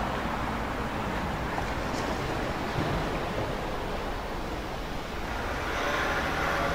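Steady rush of sea surf along the shore, mixed with wind on the microphone.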